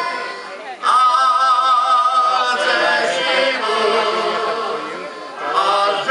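Folk singers of a heligonka ensemble singing together in several voices. Just under a second in, after a brief dip, a high voice holds a long wavering note over the others.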